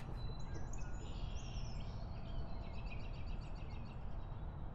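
Outdoor ambience: small birds chirping in quick repeated runs of high notes over a steady low rumble.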